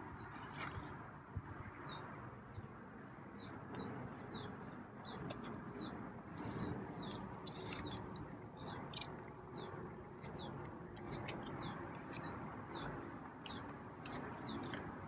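A songbird repeating a short, high, falling chirp about twice a second, over a steady low background rush.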